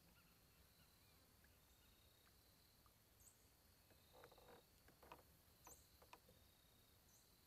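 Near silence: faint outdoor ambience, with a few short high chirps falling in pitch and a handful of soft clicks about four to six seconds in.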